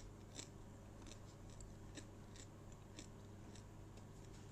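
Faint, dry crunching of a fried grasshopper being chewed: short crackles about two or three times a second.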